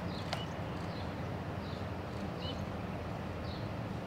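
Quiet open-air ambience: a low steady rumble with faint, short high chirps recurring about every half second, and a single light click about a third of a second in.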